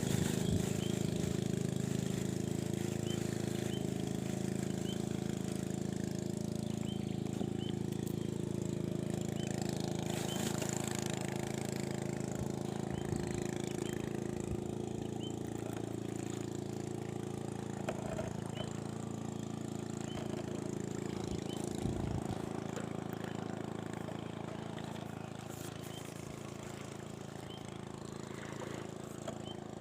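An engine running steadily at a constant pitch, easing off a little in the last few seconds.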